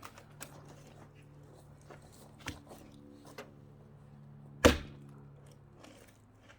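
An axe strikes a log once, a single loud chop about two-thirds of the way in, among a few light knocks and clicks of wood being handled. A faint low hum runs underneath and stops soon after the chop.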